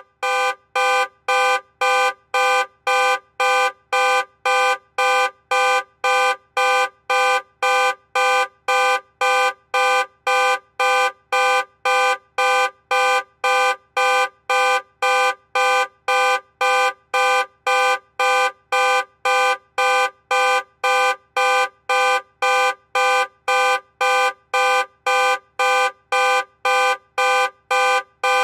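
Loud car alarm sounding in a steady on-off rhythm, about two blasts a second, each blast at the same unchanging pitch.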